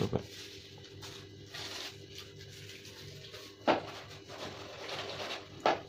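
Sharp plastic clicks from handling a small airsoft laser sight unit, two loud ones near the end, with soft rustling of hands on the plastic between them.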